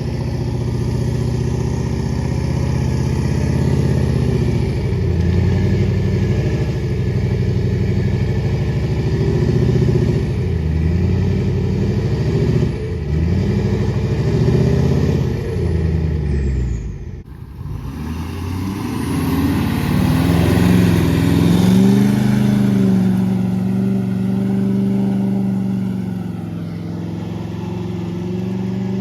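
A large vehicle engine revving up and down repeatedly under load, as if pulling or pushing through deep mud; it drops out briefly past the middle, then settles to a steadier running note near the end.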